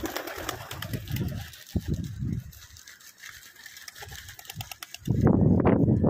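Domestic pigeons cooing: a run of low coos, with a louder stretch near the end.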